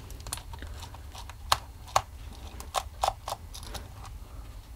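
Scattered small clicks and taps of a precision screwdriver and a plastic speaker housing as its bottom screws are undone and the red plastic case is handled and eased apart. The two sharpest clicks come about a second and a half and two seconds in.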